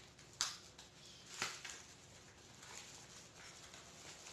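Small product packaging being opened and handled by hand: a sharp click about half a second in, a brief crinkling rustle of plastic a second later, then faint handling noises.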